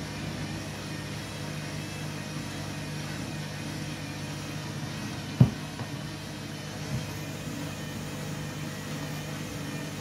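Candy front-loading washing machine turning its drum of tea towels in water: a steady motor hum over a wash of noise, with one sharp thump about halfway through and a softer knock a moment later.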